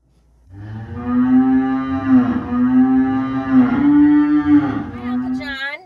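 Loud, long drawn-out mooing, held on one pitch in three or four pushes, with a quick wavering rise near the end.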